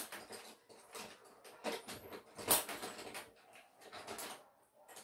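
Coloured pencils clicking and rattling against each other as someone rummages through them to pick out the blue one, in a run of irregular light clicks and rustles with a sharper click about halfway through.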